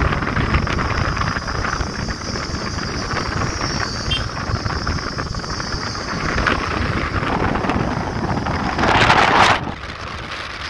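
Wind buffeting the microphone and road noise from a car driving with its sunroof open, with a steady high hiss over the rumble. About nine seconds in, a brief loud whoosh as an oncoming vehicle passes.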